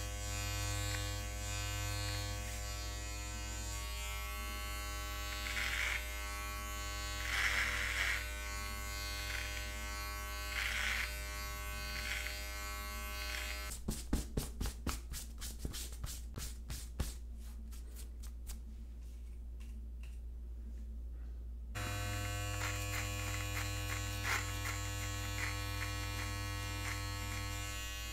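Manspot body-hair (pube) trimmer buzzing steadily as it cuts beard hair, swelling a few times as it bites into the hair. About halfway through it stops, and a quick series of brushing strokes follows as a hand sweeps the cut hair off a shirt. The trimmer starts again near the end.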